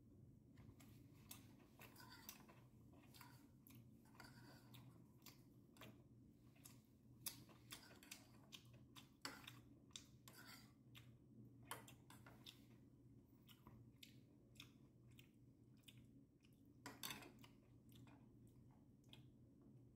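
Very quiet eating sounds: soft chewing and the handling of a paper takeout box, heard as irregular small clicks and crackles over a low steady hum.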